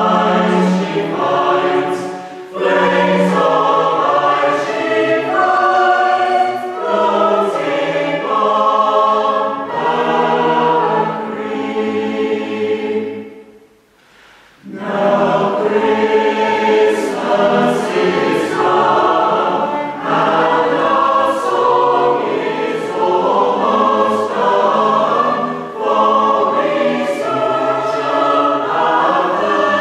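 Mixed choir singing a West Gallery carol, accompanied by a small string band with cello. The music breaks off in a short pause about halfway, then the choir comes straight back in.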